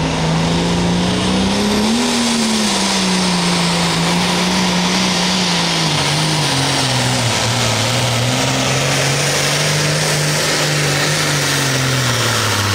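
A pulling tractor's engine running hard under load as it pulls the weight-transfer sled. Its pitch climbs about two seconds in, then wavers and sags lower as the drag builds, over a steady loud hiss.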